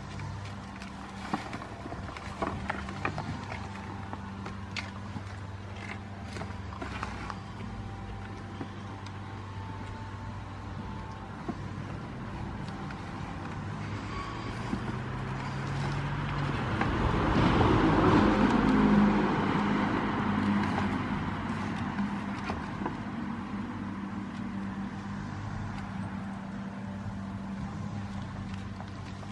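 A passing vehicle's engine noise over a steady low hum, swelling to its loudest about two-thirds of the way through and then fading. Scattered light clicks and taps come in the first several seconds.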